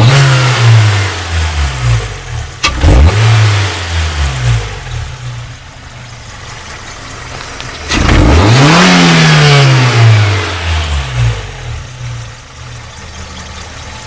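Toyota 4A-GE 16-valve inline-four engine being revved from idle: two short throttle blips, one at the start and one about three seconds in, then a steady idle. About eight seconds in comes a bigger rev, whose pitch falls slowly back to idle.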